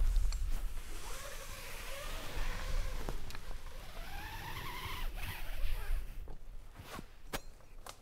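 Climbing rope running through a descender as a climber rappels down from a tree, giving a whine that rises and falls with the speed of descent, over a low wind rumble, with a few sharp clicks near the end.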